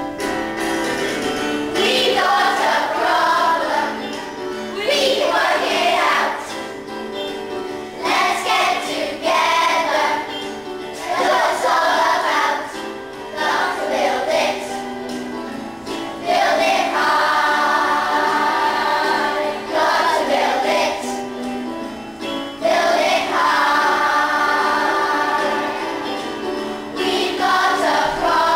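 A group of children singing a song together over instrumental accompaniment, in phrases a few seconds long.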